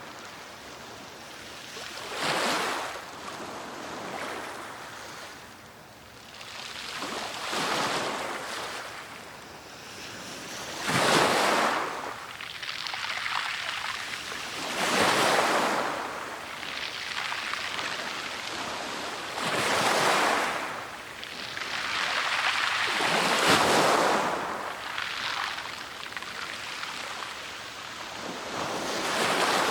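Sea surf breaking on the shore, a wash of noise that swells and falls away again every four to five seconds, seven surges in all.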